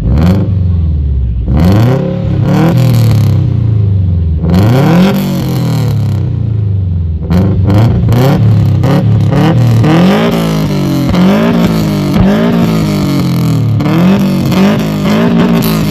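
Subaru Impreza's flat-four engine revved hard through its exhaust in repeated blips, each rising and falling in pitch. The blips come slowly at first and quicker and closer together in the second half, with sharp cracks among them.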